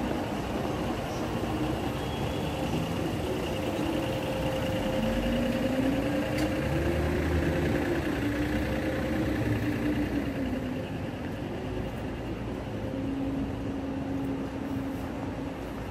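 City street traffic: a steady hum of vehicles, with one engine rising in pitch about five seconds in and easing off again a few seconds later.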